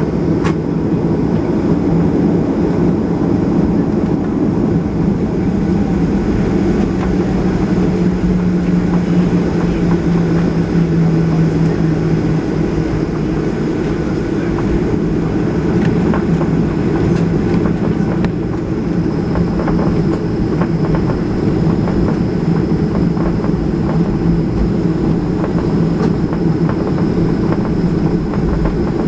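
Boeing 737-800 on the ground, its CFM56 jet engines running with a steady low rumble and hum. Scattered light knocks and rattles come through, typical of the wheels rolling over the pavement.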